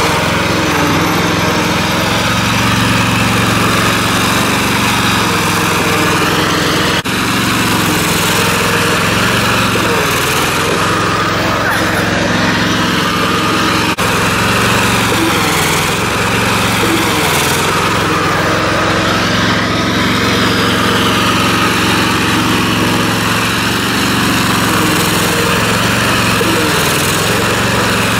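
Riding lawn mower's small engine running steadily under load as the mower is driven through mud, its speed dipping and recovering several times.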